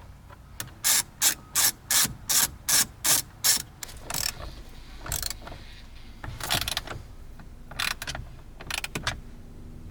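Ratchet wrench tightening the steering wheel bolt: a run of about eight quick even ratcheting strokes early on, then slower, scattered clicks.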